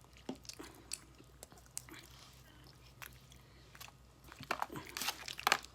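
Someone eating close to the microphone: chewing and biting with scattered crunchy clicks, which grow denser and louder near the end.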